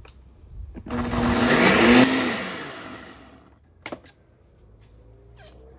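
Personal blender motor running in one stretch of about two and a half seconds, blending a thick, creamy avocado-lime sauce. It starts about a second in and winds down, followed by a single click.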